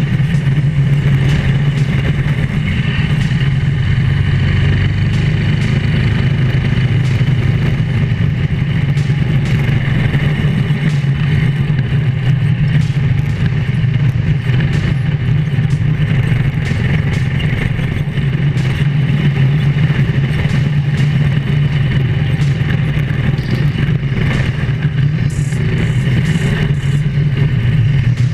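Drift kart's small engine running steadily at a near-constant pitch, with scattered rattling clicks throughout.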